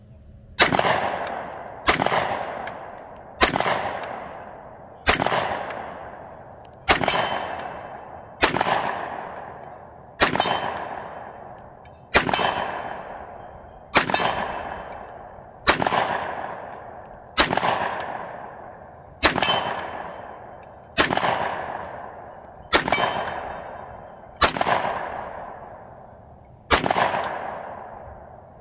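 Semi-automatic gun fired in slow, deliberate single shots, sixteen in all at about one every two seconds. Each shot cracks sharply and then fades away over about a second.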